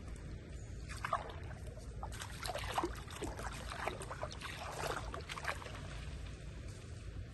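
Water splashing and sloshing in irregular bursts for about four seconds, made by monkeys bathing in a swimming pool, over a steady low rumble.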